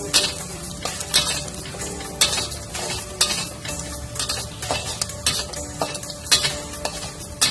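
Sliced sausages sizzling as they fry in oil in a metal wok, stirred with a metal spatula that scrapes and clinks against the pan about once a second.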